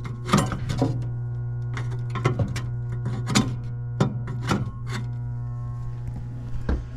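Irregular clicks and knocks of metal furnace parts and tools being handled, over a steady low electrical hum.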